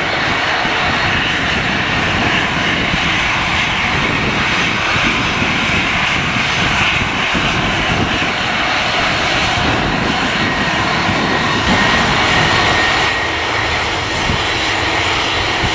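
Jet airliner engines running with a steady rush of noise, in strong gusty wind. A faint high whine comes in about ten seconds in.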